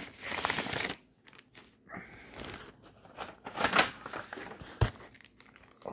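Paper mailing envelope rustling and crinkling in short, irregular bursts as an item is slid out of it, with a light knock near the end.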